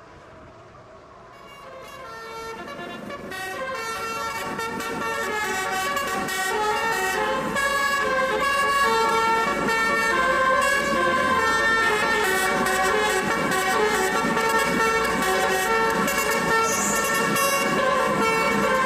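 Indonesian bus's telolet horn: a multi-tone air horn playing a run of changing notes. It swells over the first several seconds, then sounds steadily.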